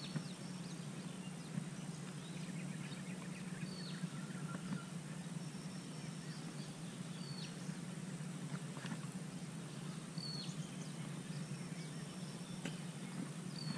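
Faint open-air swamp ambience: a small bird gives short, high chirps every few seconds over a steady low hum.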